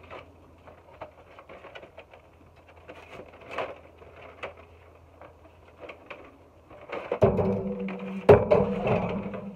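Packaging being opened and handled: scattered rustles and small clicks. About seven seconds in, a louder steady hum starts, with knocks and one sharp click.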